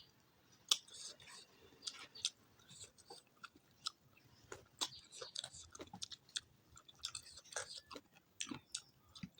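Close-miked chewing and mouth sounds of someone eating chicken and rice: irregular wet smacks and clicks, several a second.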